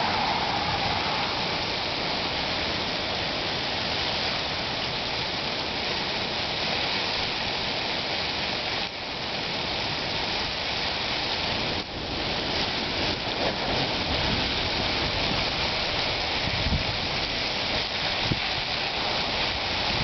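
Steady hiss of sleet falling, with ice pellets striking surfaces, during a snow and sleet storm. The sound dips briefly twice, about nine and twelve seconds in.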